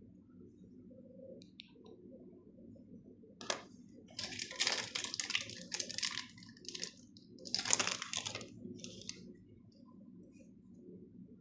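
Packaging crinkling and rustling as it is handled, in a few crackly bursts through the middle, over a faint steady low hum.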